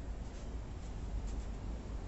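Steady low rumble of outdoor background noise, with a few faint high ticks.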